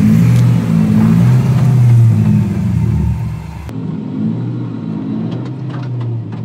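Turbocharged Hemi V8 in a Ford pickup running hard under throttle off road, then easing to a lower, quieter note about three seconds in, with a few light clicks near the end.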